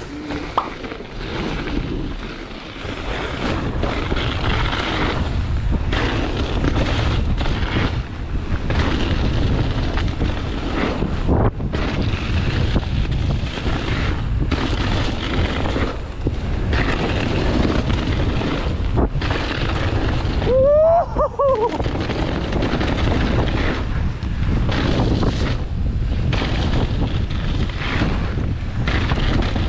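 Wind buffeting a chest-mounted GoPro microphone as a mountain bike descends a frozen, rough dirt trail at speed, with steady rumble and frequent knocks from the tyres and bike over the bumpy ground. About two-thirds of the way in there is a brief squeal that rises and falls in pitch.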